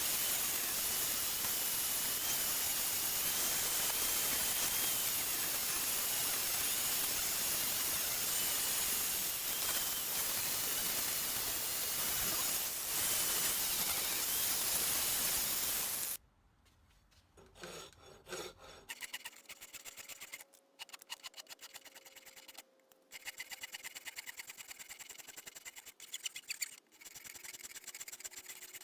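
Steady rushing noise with a faint wavering whine for about the first sixteen seconds, then, after an abrupt cut, much quieter fast rubbing strokes repeating evenly, as in sanding or filing.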